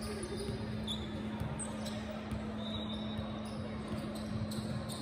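Basketball bouncing on a gym court with a few short sneaker squeaks, over a steady hum.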